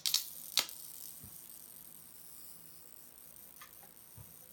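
Electrical sparks snapping in a homemade Tesla coil circuit driven by microwave oven transformers: two sharp cracks in the first second, a few faint ticks later, and a thin high hiss that slowly fades. The sparks may come from capacitors arcing across loose connections.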